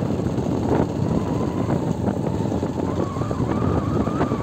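Wind rumbling on the microphone over a steady engine drone, with a faint whine that starts about a second in and rises slightly in pitch in the second half.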